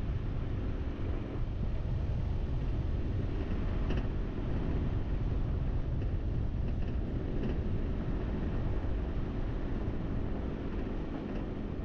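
Steady low rumbling noise, with a few faint ticks around four and seven seconds in.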